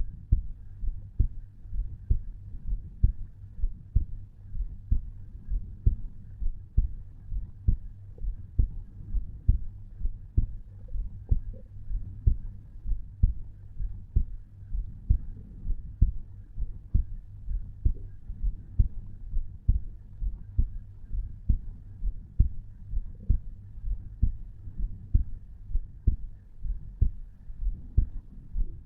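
A resting adult human heartbeat heard through the chest at the tricuspid valve area: a steady lub-dub, one pair of dull low thumps about once a second, at around 60 to 70 beats a minute.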